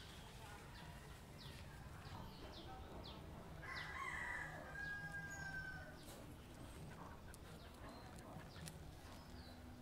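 A rooster crowing once about four seconds in, its call ending in a long held, slightly falling note, over faint, scattered chirps of small birds.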